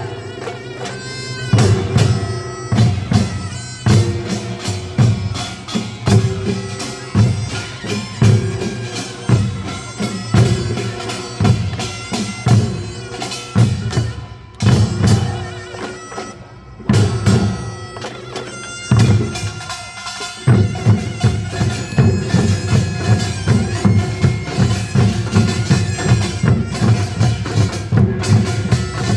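Gyeongsang-do nongak, a Korean farmers' band, playing loudly: a shrill taepyeongso (conical double-reed shawm) melody over a steady pulse of gongs and drums. Past the middle the beat thins out briefly, then picks up into a dense, fast drumming pattern in the last third.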